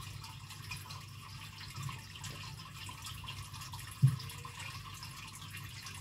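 Aquarium filter and water feature running: steady trickling, splashing water over a low hum, with one dull thump about four seconds in.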